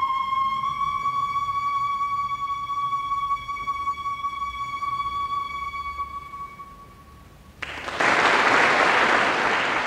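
Solo flute holding one long high note, the closing note of the piece, slowly fading away. About seven and a half seconds in, the audience breaks into applause.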